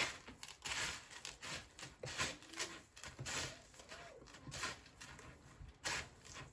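Irregular rustling and crunching as raw chicken pieces are dropped into a dry Flamin' Hot crumb coating and tossed and pressed in it.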